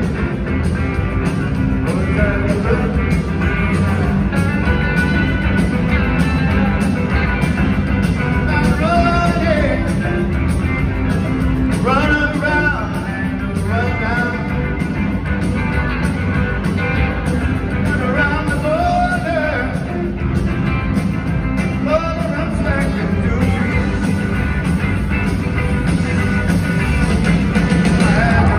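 Live rock band playing through a concert PA: electric guitars, bass, drums and keyboards, with a lead line that slides up and down in pitch over the steady band.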